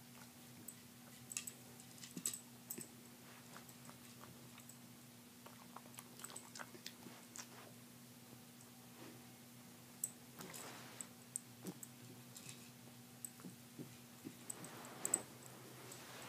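Small dog mouthing, chewing and pushing a hard plastic treat toy: faint, scattered clicks and knocks of teeth and plastic, with a few brief rustles.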